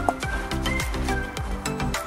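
Background music with a steady beat and deep, falling bass notes.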